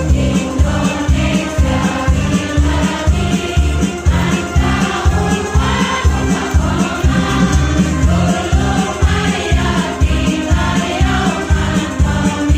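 A choir singing to music with a steady, heavy bass beat.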